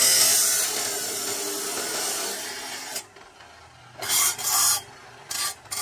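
Abrasive chop saw with a cut-off disc grinding through steel square tubing, a loud harsh hiss that stops sharply about three seconds in. About a second later the disc bites into the next tube in two short bursts, then two brief touches near the end.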